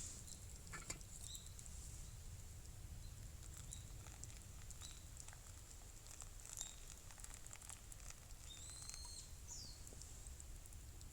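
Faint wood campfire crackling: scattered small pops and ticks over a low steady background rumble, with a short bird call near the end.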